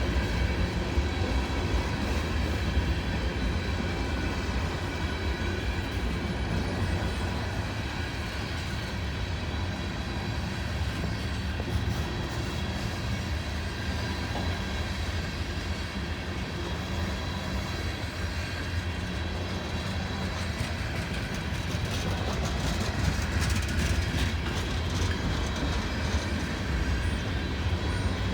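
Freight train cars rolling past, a steady rumble of wheels on rail that grows somewhat louder near the end.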